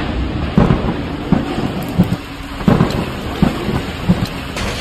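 Tornado winds blowing hard over a phone microphone in a steady low rush, broken by about half a dozen irregular thumps.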